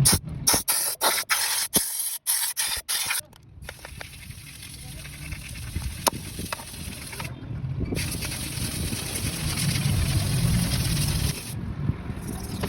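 A hissing, spray-like noise in rapid short bursts for about three seconds, then a car engine running with a steady low hum that slowly grows louder.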